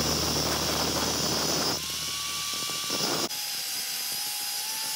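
Angle grinder with a thin cut-off disc running and cutting through a threaded metal rod, a steady motor whine under the grinding noise. The sound changes abruptly about two seconds in and again about three seconds in, becoming lighter and quieter.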